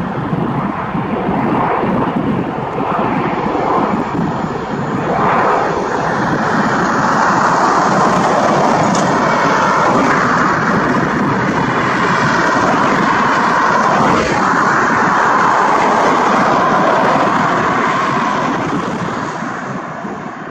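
Bell Boeing V-22 Osprey tiltrotor running loud and steady with its two turboshaft engines and rotors, the noise fading away near the end.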